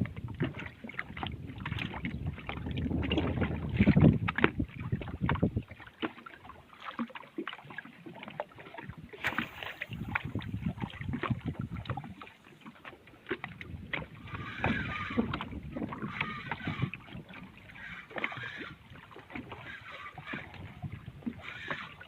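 Water splashing and lapping against a small fishing boat, with scattered knocks and clicks. A low rumble fills the first five seconds or so, then drops away.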